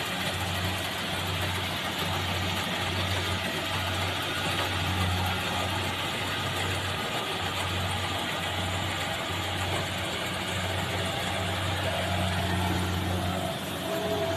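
Engine of a mechanical rice harvester running steadily while it cuts the crop, a low drone that swells and fades in a regular rhythm under a broad mechanical rattle.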